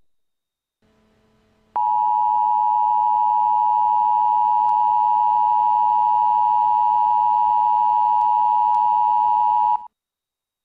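Emergency Alert System attention signal: two steady tones near 1 kHz (the 853 and 960 Hz pair) sounding together at a constant level. It starts abruptly about two seconds in, holds for about eight seconds and cuts off sharply.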